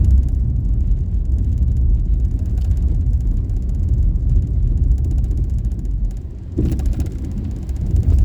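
Daihatsu Esse kei car on the move: a steady low rumble of engine and road noise, briefly dipping and then rising in a short louder rush about six and a half seconds in.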